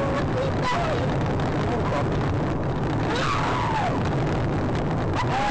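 Steady loud rush of road and wind noise from a moving car, as picked up by a dashcam microphone, with faint, indistinct voice-like sounds over it.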